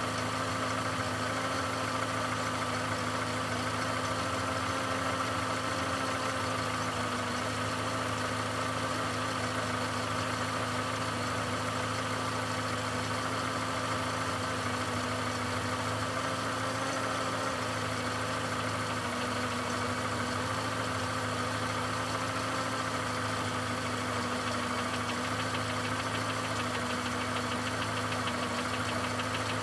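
Volkswagen Golf Plus 1.6-litre BSE petrol engine idling steadily with a knock, the engine fault being shown.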